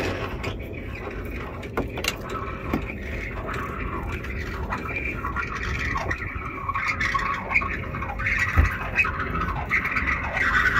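Irregular scraping and scratching with a few sharp knocks, from rope and fishing gear being handled against a small boat. It is heard over a steady low rumble, and the scraping grows louder in the second half.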